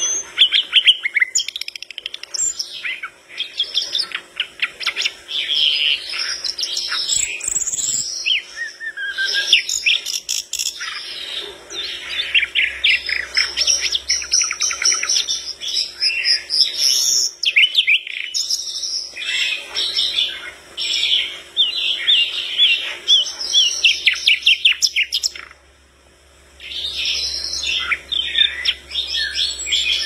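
Brown-chested jungle flycatcher (sikatan londo) singing a long, fast, varied song of high trills, chatters and whistles, with a short pause near the end.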